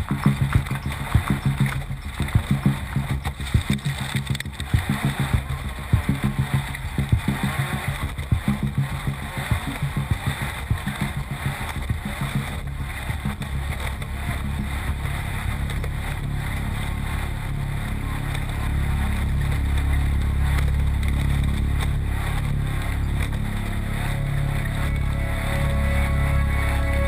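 Off-road race car engine running under load, with many rapid, irregular knocks over the first half, then a steadier low drone. Music comes in near the end.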